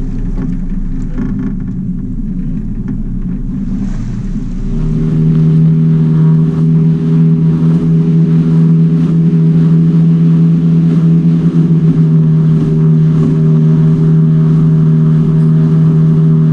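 Outboard motor of a small aluminium boat running; about five seconds in it grows louder and settles into a steady, even engine note.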